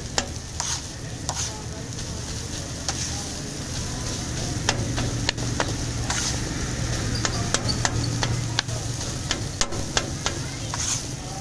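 Flat metal spatula scraping and tapping on a hot iron tawa, with many sharp irregular clicks, as shredded boiled chicken is stir-fried in ghee. A light sizzle and a steady low hum sit underneath.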